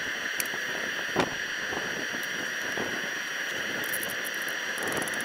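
Steady hiss with a faint, thin high whine, broken by scattered light taps and clicks. Near the end there is a rapid, fluttering high chatter. It is the sped-up outdoor sound of a time-lapse of ladder work.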